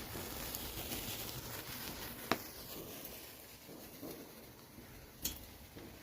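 Wood fire crackling quietly, with two sharp pops about three seconds apart over a faint hiss.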